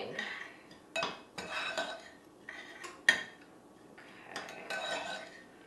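Metal spoon stirring a gritty crushed-pistachio and breadcrumb coating in a ceramic bowl: irregular scrapes and clinks of the spoon against the bowl, with one sharper clink about three seconds in.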